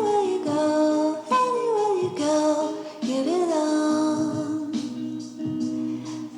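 Background song: a woman singing a gliding melody over a sustained instrumental accompaniment.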